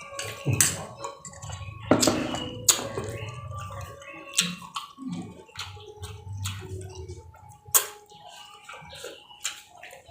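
Close-up eating sounds: wet chewing and lip smacks with several sharp crunches from bites of raw vegetables.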